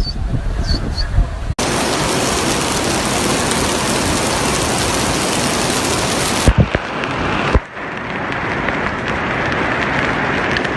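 Steady hiss of pouring water in a flash flood, in short clips that cut abruptly into one another: a rumble first, then a dense, even hiss, with a few sharp knocks about six and a half seconds in and a duller hiss after the next cut.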